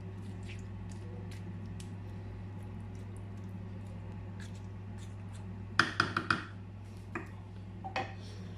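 Kitchen handling sounds over a steady low hum: faint ticks of a utensil working food in a glass baking dish, then a quick run of sharp clinks and knocks about six seconds in, with single clicks near the end, as dishes and utensils are handled.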